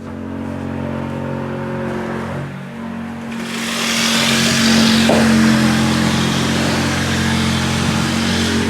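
Yacht engine running steadily at a constant speed, with a loud rushing hiss joining it about three and a half seconds in.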